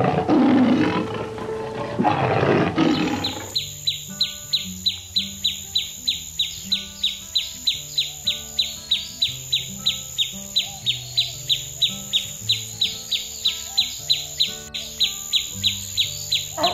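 A rough, roar-like animal call for the first three seconds or so, then a rapid even series of short high chirps, about three or four a second, over background music with a stepping bass line.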